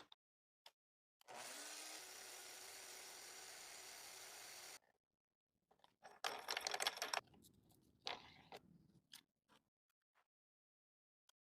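Angle grinder running steadily for about three and a half seconds with a high whine, then a shorter, louder burst of grinding noise about six seconds in, followed by a few scattered clicks.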